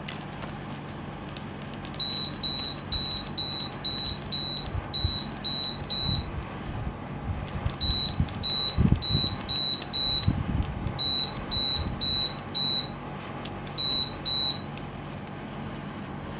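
Samsung mini-split air conditioner's indoor unit beeping, about twenty short, identical high beeps in four quick runs, the kind it gives once for each remote-control command. Under it the unit runs with a steady noise, and a few dull low thumps come midway.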